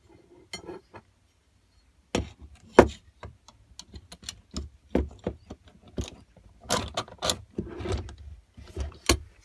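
Steel bolts, nuts and flat steel bar pieces clinking and knocking as they are handled and fitted together into a pivot: irregular sharp metal clinks, the loudest a little under three seconds in.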